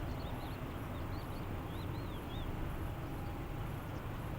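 Steady low rumble and hiss of open-air ambience, with a run of short, high, arched bird chirps in the first half.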